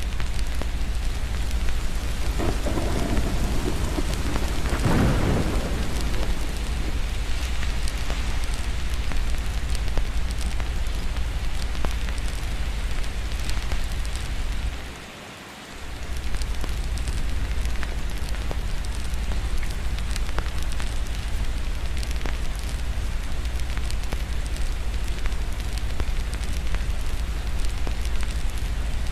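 Steady rain with a low rumble underneath and a roll of thunder a few seconds in, with scattered crackling clicks of a fireplace throughout. The sound briefly dips away about halfway, then returns.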